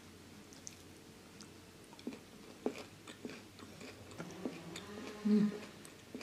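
Close chewing and small wet mouth clicks of someone eating ayam geprek (smashed fried chicken) with rice by hand. Near the end comes a short low hum, the loudest sound here.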